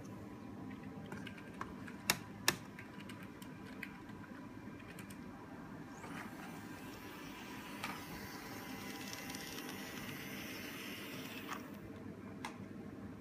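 Two sharp clicks about half a second apart. Then a Kato N scale model locomotive runs along the track, its small electric motor whirring with a light hiss of wheels for about five seconds before it stops.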